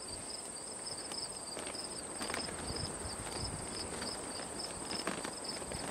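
Insects chirping: a high chirp pulsing about three times a second over a steady high-pitched buzz, with a few faint ticks.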